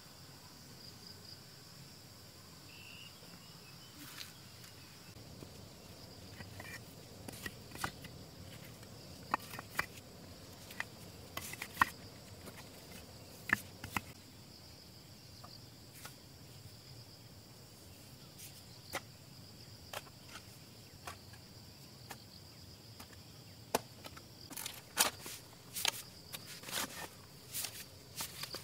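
Steady high-pitched drone of insects, with irregular sharp knocks and clicks over it that come more often near the end.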